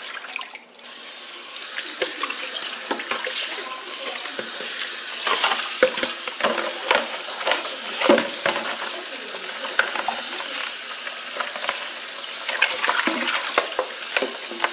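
Tap water running into a plastic colander of cut yardlong beans in a stainless steel sink, starting abruptly about a second in. Hands stir the wet beans, adding a scatter of splashes and clatter over the steady rush of the stream.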